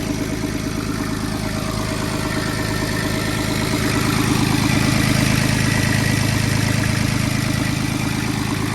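Three-cylinder Isuzu diesel of a John Deere 17ZTS mini excavator idling steadily, growing louder about four seconds in and easing slightly near the end.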